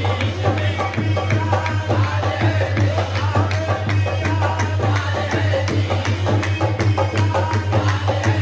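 Live qawwali music: a steady fast rhythm of dholak-style barrel drums and the chorus's handclaps under a harmonium, with singing into the microphones.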